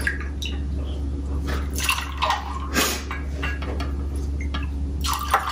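Tequila poured from a glass bottle into a metal jigger and then into a metal cocktail shaker holding ice: liquid trickling and splashing, with a few light clinks. A steady low hum runs underneath.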